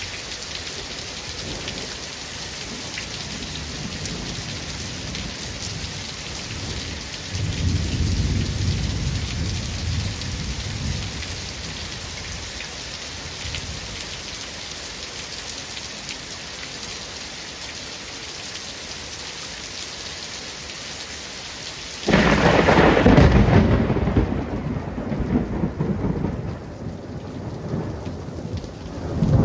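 Steady rain falling, with rolling thunder: a low rumble swells about a quarter of the way in, then a sudden loud thunderclap about three-quarters through rumbles on for several seconds and is the loudest moment.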